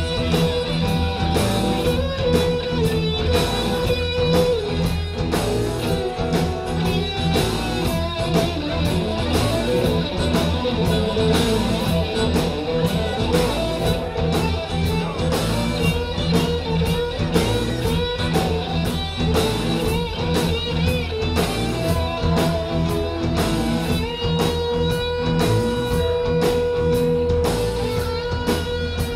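Live rock band playing an instrumental passage: electric guitar lead over bass and a steady drum beat, with a long held guitar note near the end.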